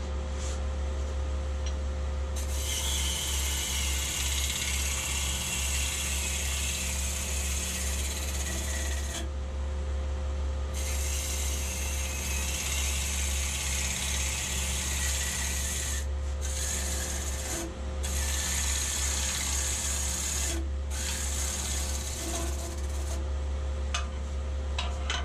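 Wood lathe running with a steady hum while a hand-held turning tool cuts the spinning wood, a scraping rush of shavings coming off in long passes. The cutting starts about two seconds in and breaks off briefly several times, where the tool comes off the wood.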